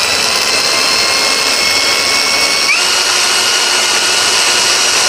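Cordless 4-inch angle grinder running free with no wheel fitted, giving a steady high whine. About two and a half seconds in, the whine steps up in pitch as the speed setting is raised.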